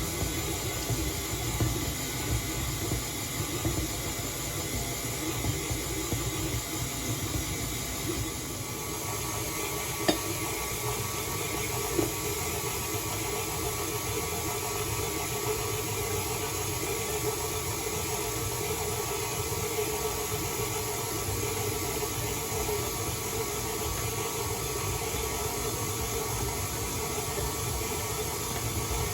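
A steady mechanical whir and hiss, with two short sharp knocks about ten and twelve seconds in.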